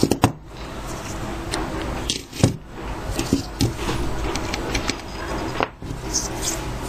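Scattered clicks and light metallic rattles of small Torx screwdriver bits being taken from a plastic bit holder and fitted into a screwdriver handle, the loudest click about two and a half seconds in. A steady low rumble runs underneath.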